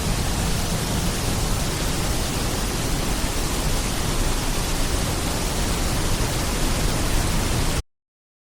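Steady, dense hiss of heavy downpour rain picked up by a rain-soaked microphone that has just failed. The sound cuts off abruptly to dead silence near the end as the audio drops out.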